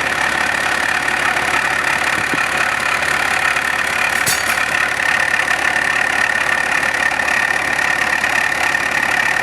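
Engine idling steadily with a knock, which the owner presents as the engine's fault. There is a single sharp click about four seconds in.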